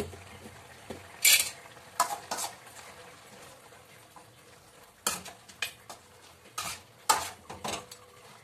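Metal spoon scraping and knocking against an aluminium kadai as mutton curry is stirred to mix in salt, in irregular strokes with a short pause in the middle.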